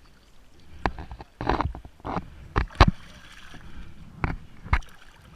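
Water splashing and sloshing against a boat, with a run of sharp knocks and bumps as a diver in the water handles a heavy stainless steel outboard propeller at the hull. The loudest knock comes a little under three seconds in.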